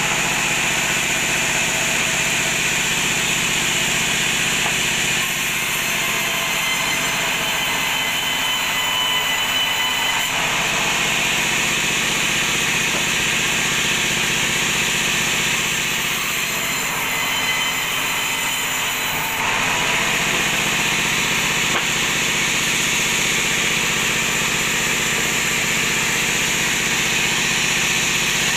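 Sawmill bandsaw running steadily while resawing teak offcuts into boards: a continuous loud machine drone and hiss with several steady tones, its sound shifting slightly a few times as wood is fed through the blade.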